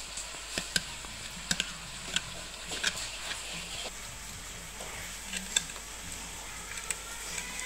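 A knife scraping and clicking against hard, cracked seed shells, with shell halves knocking on a wooden chopping board. Scattered sharp clicks at irregular intervals over a steady hiss.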